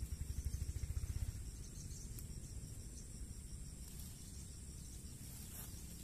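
Steady high-pitched chirring of insects, with a low rumble underneath that pulses rapidly and is strongest in the first second and a half.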